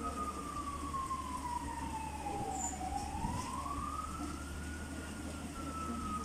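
Fire truck siren wailing: a single tone that glides slowly down, rises again about three seconds in, then starts falling once more.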